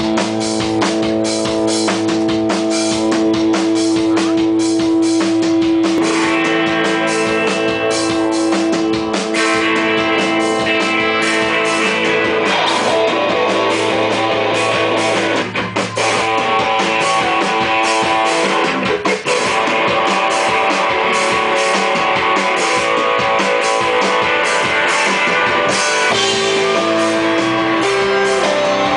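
Rock band playing live: guitars over a drum kit at full volume, with two brief drops about 15 and 19 seconds in.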